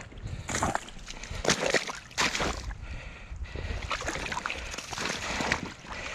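Boots sloshing and squelching through deep wet mud and standing water in a rut, a series of uneven steps.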